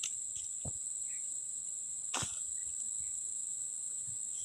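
A steady high-pitched insect drone with two faint knocks, about a second apart.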